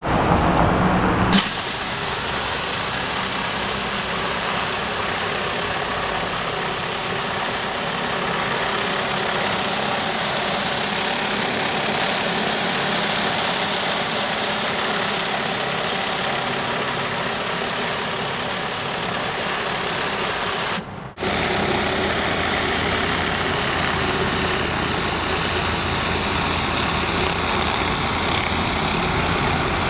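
Engine-driven pressure washer running steadily, with a hiss of high-pressure water spray over the engine hum. The sound changes sharply a little over a second in, then drops out for a moment about two-thirds through and resumes with a stronger engine hum.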